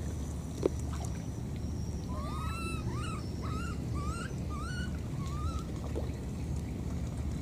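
Baby monkey crying: a run of about six short, high calls, each rising and then falling, starting about two seconds in. A single sharp knock comes under a second in.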